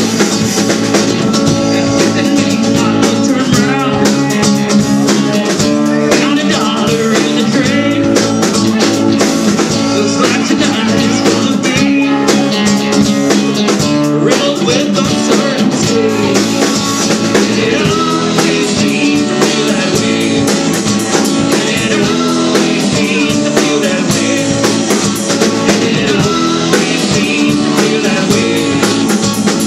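A live rock band playing a song, loud, with drum kit, guitar and a singer.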